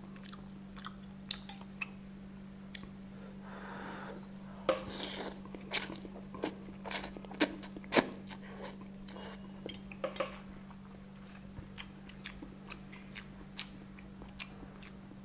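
Close-miked eating of fork-lifted noodles: wet chewing and mouth clicks, with a denser run of slurps and bites in the middle and the sharpest click about 8 seconds in. A steady low hum sits underneath.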